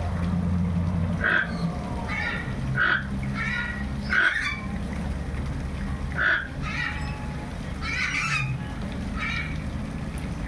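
Toco toucan giving short, harsh calls, about nine of them at irregular intervals, over a steady low hum.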